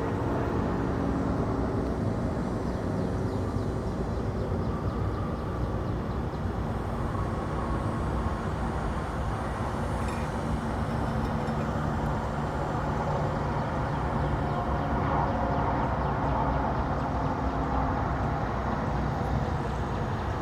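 Steady mechanical drone with a low hum running under it, without pauses or sharp knocks.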